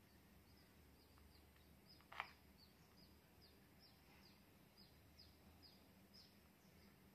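Near silence, with faint short falling chirps from a small bird, about three a second, through the middle of the stretch. A single soft click comes a little after two seconds in.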